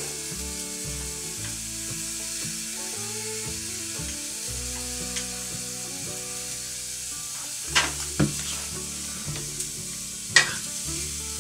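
Quiet background music of soft held notes over a steady hiss, with a few sharp clicks near eight seconds in and a louder one a little after ten seconds.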